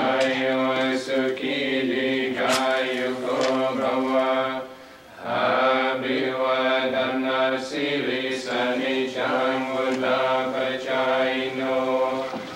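Buddhist monks chanting in a steady, near-monotone drone, with a short pause for breath about five seconds in.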